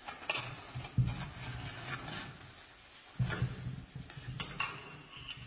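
A metal trowel scraping and clinking across the top of a mortar mould as the fresh mortar surface is struck off level, with two sharper knocks about one and three seconds in.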